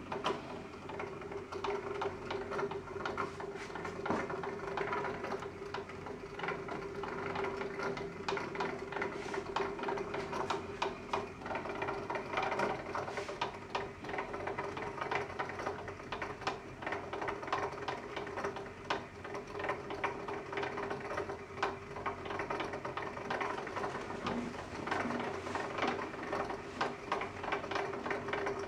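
Wooden plywood gear train of a scroll-sawn gear clock spinning freely with no pallet or pendulum fitted, the wooden teeth meshing in a continuous rapid, irregular clicking and rattling over a steady hum. The free run is a test of how the hand-cut gears mesh and turn.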